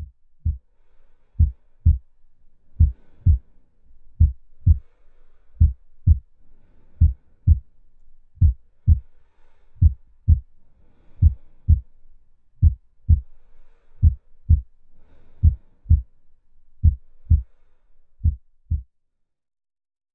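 Heartbeat sound effect: low double thumps, lub-dub, about every 1.4 seconds, stopping just before the end.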